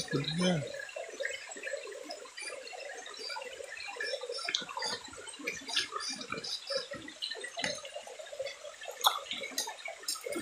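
Shallow stream water burbling and splashing over rocks as electric-fishing poles are worked in it, with a couple of sharp clicks about nine seconds in.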